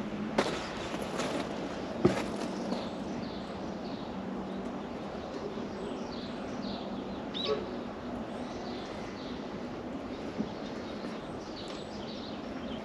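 Small birds chirping on and off, with two sharp knocks about half a second and two seconds in, over a faint low hum for the first few seconds.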